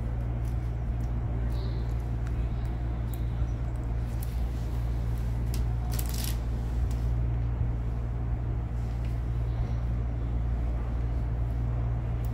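Steady low mechanical hum, with scattered small clicks of steel surgical instruments (hemostat forceps and scissors) and a brighter cluster of clicks about six seconds in.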